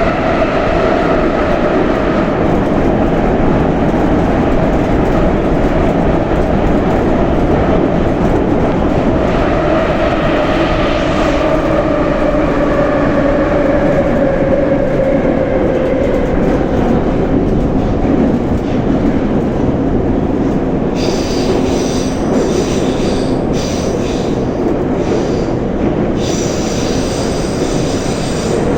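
Moscow Metro 81-717/714 'Nomernoy' train running between stations, heard from inside the car: a steady rumble of wheels on rail under a whine that slowly falls in pitch. From about 21 seconds in, a stuttering high-pitched wheel squeal comes and goes.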